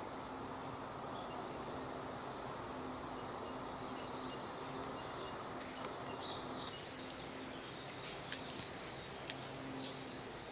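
Steady outdoor background hum and hiss. A thin, faint high whine runs through the first few seconds, and a few light ticks come after about six seconds.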